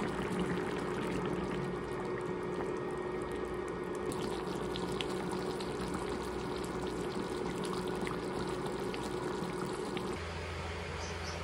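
Chicken afritada sauce bubbling at a steady boil in a pan, a dense run of small pops and blips over a steady low hum. The sound cuts off suddenly about ten seconds in.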